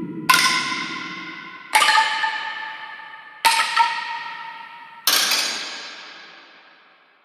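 Four eerie, bell-like metallic hits from the EERIE 2 Kontakt sample library, one about every 1.7 seconds, each struck sharply and ringing out in a slow fade.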